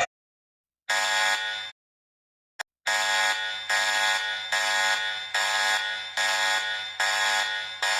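Harsh electronic emergency-alert alarm beeping. One beep comes about a second in, then a brief click, then a steady run of repeated beeps, about one every 0.8 seconds.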